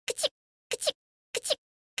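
An anime girl's small sneeze, a short two-part burst with a brief rising squeak of voice and a breathy hiss, repeated in a tight loop about every 0.6 s with dead silence between: three sneezes and the start of a fourth.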